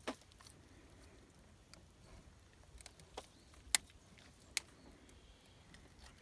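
Quiet handling of a nylon gillnet in an aluminium boat while a catfish is worked free: faint rustling with a few sharp clicks and taps, the loudest just before four seconds in.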